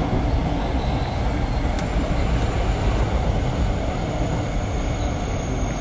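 JR West 223 series 2500 subseries electric train (unrenewed, with Hitachi IGBT inverter) running: a steady rumble of wheels and running gear, with a faint high whine that sets in about two seconds in and slowly falls in pitch.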